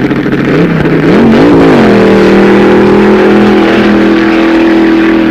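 Dragster engine revved in a few quick rises and falls, then held at a loud, steady high pitch as the car pulls away from the start line and down the strip.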